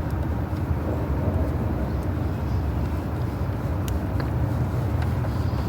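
Steady low rumble of vehicle-like background noise, with a few faint clicks about four seconds in.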